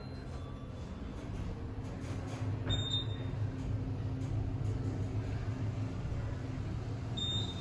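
Otis Gen 2 elevator car travelling between floors, a steady low hum from the ride. Two short high-pitched beeps sound about four seconds apart.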